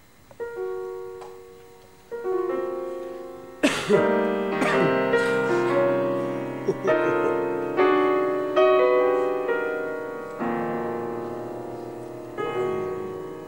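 Piano playing a slow series of struck chords, each ringing out and fading away. The first few are soft and spaced well apart; from about four seconds in, louder chords come roughly once a second.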